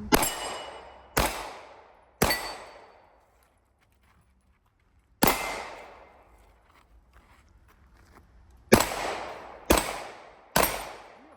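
Seven handgun shots, each with a short echoing tail: three about a second apart, a single shot about three seconds later, then three more in quick succession near the end.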